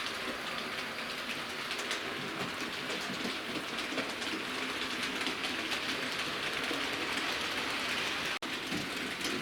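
Hornby OO-gauge model locomotive Tornado hauling coaches round the track: a steady whirr of motor and wheels on the rails with faint clicking. The sound drops out for an instant about eight seconds in.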